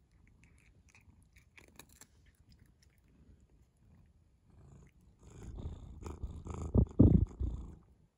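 A cat eating crunchy treats from a hand: faint crunching clicks for the first few seconds, then a louder low rumbling stretch of about three seconds with two sharp peaks near the end.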